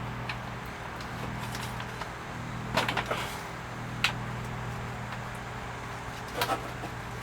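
A few sharp clicks and knocks of parts being handled inside a washing machine's control console while a pressure switch is taken out: a quick cluster about three seconds in, one at about four seconds and two more near the end. Under them runs a steady low hum.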